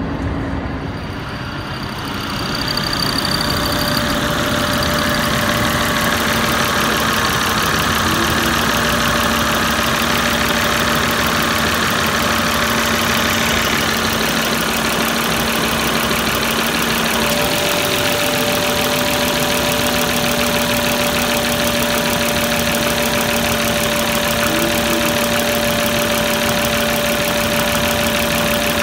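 A 2004 Volvo S60's 2.4-litre five-cylinder engine idling steadily with the A/C on. It is heard first from inside the cabin, then louder and close up in the engine bay. About two-thirds of the way through, the running note steps up slightly and stays there.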